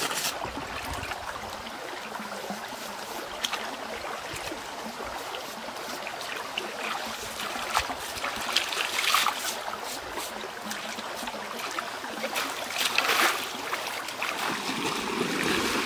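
Shallow stream water running steadily, with splashing from hands working in the water and mud, loudest about nine and again about thirteen seconds in.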